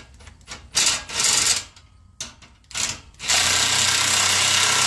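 Rubbing and scraping of a steel exhaust tip being worked into place, with short spells of noise. Then a cordless power tool runs steadily for about two seconds near the end, tightening the tip's clamp.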